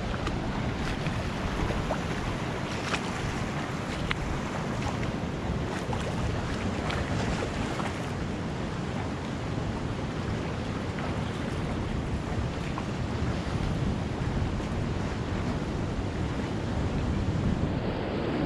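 Ocean surf washing onto a sandy beach, a steady rush of noise, with wind on the microphone.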